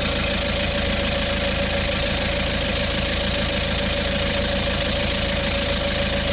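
Auto XS 12-volt digital tyre inflator's compressor running steadily, pumping air into a car tyre.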